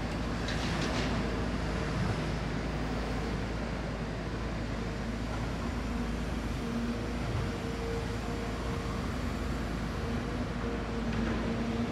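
Diesel engines of a long-reach excavator and dump trucks running steadily at a construction site. A steady hum at one pitch comes and goes over the engine noise.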